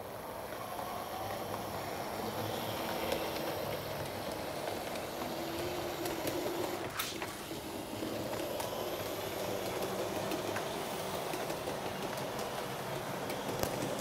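Model railway diesel locomotive and its coaches running along the track: a steady rumble of motor and wheels that grows louder over the first couple of seconds and then holds, with occasional sharp clicks, most of them near the end.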